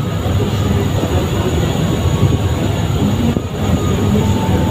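Steady low rumble of a river passenger launch's diesel engine running.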